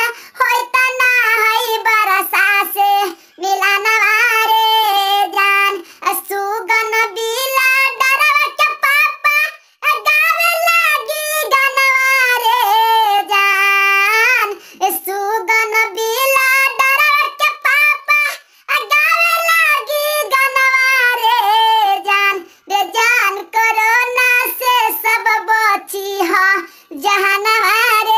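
A high-pitched voice singing a tune with no accompaniment, in phrases broken by short pauses.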